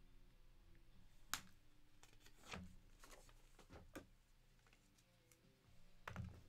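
Near silence broken by a few faint clicks and light rustles of trading cards and plastic card holders being handled, with one sharper click a little over a second in.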